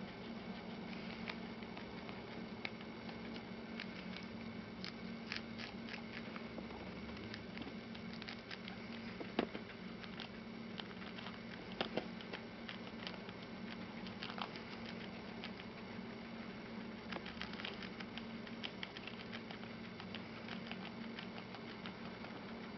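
Guinea pigs chewing a crisp lettuce leaf: a rapid, irregular run of small crunching clicks, with a few louder snaps.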